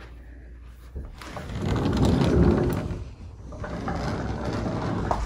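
A sliding glass patio door: a click of the latch about a second in, then the door rolling along its track, with a second, quieter stretch of rolling later.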